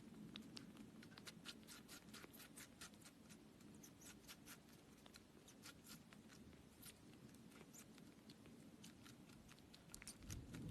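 Faint, quick clicks and ticks, several a second and unevenly spaced, over a low hum, with a soft thump just before the end.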